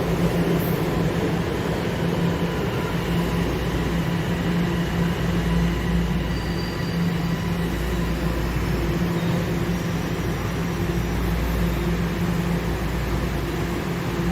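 TTC subway train running on the track: a steady rumble with faint thin high tones above it.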